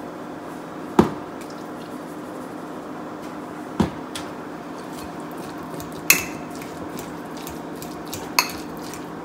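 Four sharp clinks and knocks a couple of seconds apart as spice shakers are set down and a metal spoon stirs guacamole in a glass bowl, over a steady low hum.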